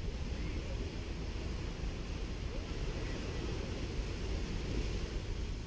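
Gentle sea waves washing onto a sandy beach in a steady surf wash, over a low rumble of wind on the microphone.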